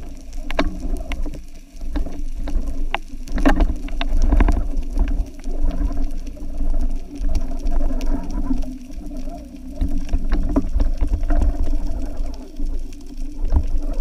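Underwater ambience: low rumbling water noise with a steady low hum and scattered sharp clicks.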